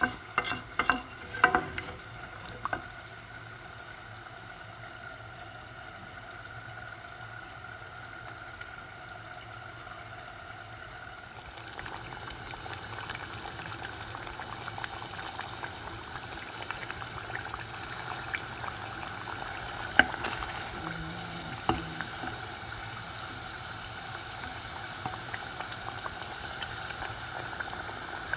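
Fish curry bubbling in a pot, with a spatula knocking against the pot several times in the first few seconds. About twelve seconds in the bubbling becomes busier and crackling, with two sharp knocks later on.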